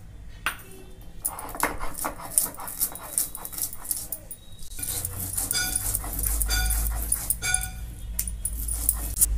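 Cumin, mustard seeds and black peppercorns being ground on a stone slab with a stone roller: a run of scraping, crunching grinding strokes. In the second half a dog barks three times, about a second apart.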